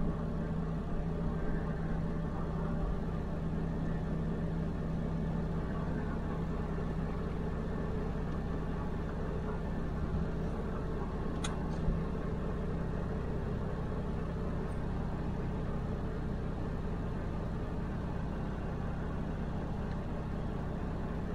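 Diesel truck engine idling steadily with a constant low hum. A single faint click comes about eleven seconds in.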